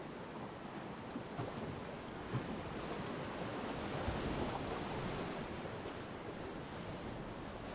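Rushing whitewater of a river rapid heard from a kayak, swelling louder as the boat goes down the drop about three to five seconds in.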